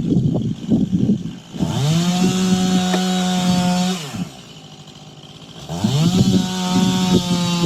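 Two-stroke chainsaw running at a rough, uneven idle, then revved up to full throttle for about two seconds. It drops back to idle, then revs up again near the end and holds steady.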